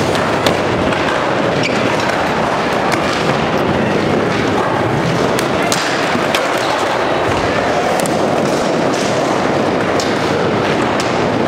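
Steady, dense din of an indoor skatepark: skateboard wheels rolling and many short board clacks and knocks, with faint voices in the background.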